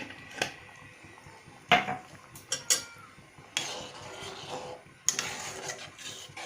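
Metal spoon knocking against and scraping a cooking pan while stirring chutney: a few sharp taps, then two longer stretches of scraping in the second half.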